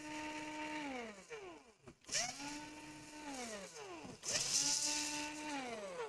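Cordless electric screwdriver backing out the laptop's heatsink screws, in three runs. Each run spins up to a steady whine, holds it for about a second, then winds down.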